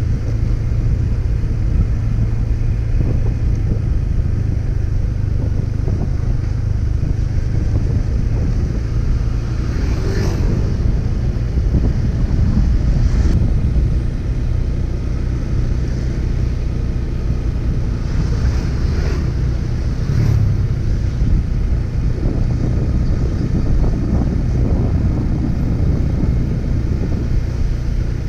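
Wind buffeting the microphone over the steady drone of a moving vehicle's engine and road noise while travelling along a road, with brief louder swells about ten and nineteen seconds in.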